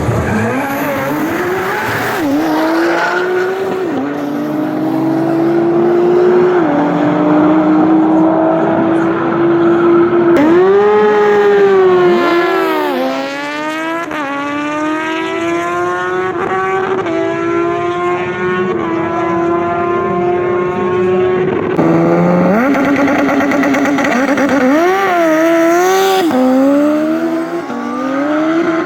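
Drag-racing car engine revving loudly, held at steady high revs for long stretches, with a sharp dip and climb partway through and quick rev blips near the end.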